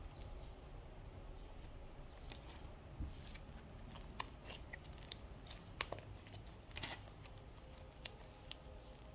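Elmer's glue slime being kneaded and stretched by hand: faint sticky clicks and squelches, scattered, with a few sharper ones in the second half.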